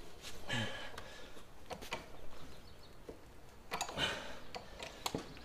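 Geared hand-cranked belly drill in low gear, its gears clicking and ticking faintly and irregularly as an auger bit bores slowly into green Douglas fir: laborious, hard-going work. Two short rasping sounds come about half a second and about four seconds in.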